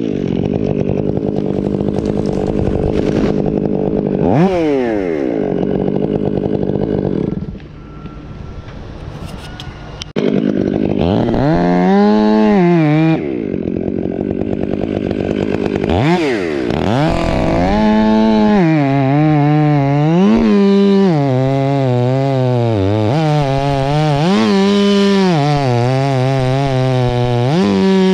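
Stihl 500i fuel-injected two-stroke chainsaw running at full throttle in a pine trunk. It eases off to a quieter, lower running for about two seconds roughly a third of the way in, then comes back up. From the middle on, its pitch rises and falls again and again as it revs up and down.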